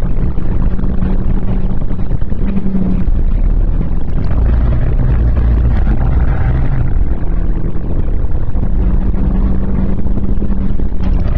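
Renault Clio 1.6 16v four-cylinder engine running hard under load, with a heavy rumble beneath it. Its note holds steady, drops lower about four seconds in, and climbs back to a steady pitch near the end.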